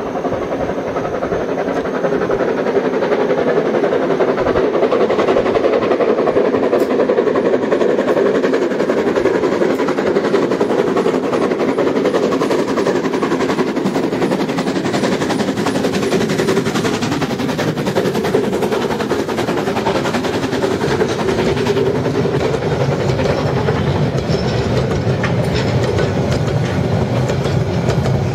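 Harz metre-gauge 2-10-2 tank steam locomotive 99 7240-7 working hard up a steep gradient, its exhaust chuffing continuously as it approaches. In the second half its coaches run past close by with a deeper rumble and wheels clicking over the rail joints.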